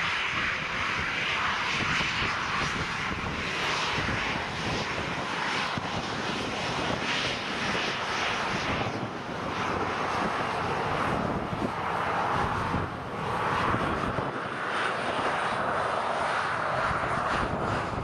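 Boeing 737's twin CFM56 turbofans running at low taxi thrust: a steady jet whine and rush that swells and eases a little as the airliner rolls past.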